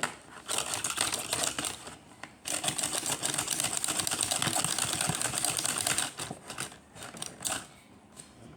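Rapid plastic clicking and clattering of Akedo battle figures fighting, their punching arms driven by thumb presses on hand controllers. It comes in a short run, then a longer one of about three and a half seconds, then a few scattered clicks.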